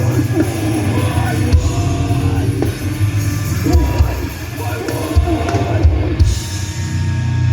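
Live metallic hardcore band playing loud and heavy: distorted guitars, bass and drums with vocals over them, captured on a phone in the crowd. Near the end the low end thickens and gets louder.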